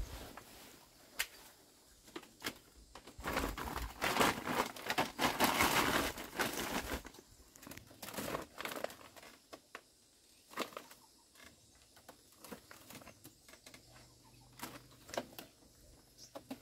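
Bundles of long red beans rustling as they are lifted and laid into a woven bamboo basket, with scattered light taps and clicks. A denser, louder stretch of crinkling rustle comes about three to seven seconds in.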